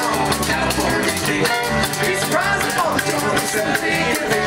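Live bluegrass band playing a passage without lyrics: banjo picking over upright double bass, with bending melodic lines from the other instruments.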